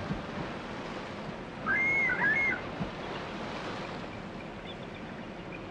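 Bald eagle calling: a brief burst of high, whistled notes that rise and fall, about two seconds in, over a steady rush of water. A few fainter high calls follow near the end.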